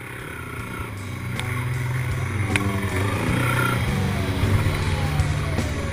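Honda quad's engine running hard under load, its pitch stepping up and down as the throttle and gears change, with a few sharp knocks from the machine over the rough trail.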